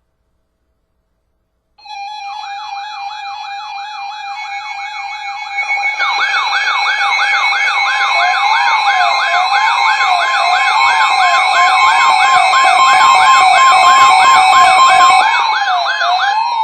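Several electronic sirens sounding together over a steady tone, starting about two seconds in. The first is a fast rising-and-falling warble. A second, louder fast warble joins a few seconds later, then a slower wavering wail, and the whole grows louder toward the end.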